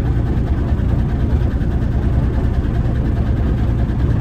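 Kenworth K100 cabover's diesel engine idling steadily, a low, even rumble heard from inside the cab; the truck is being left to idle because it has not run for a while.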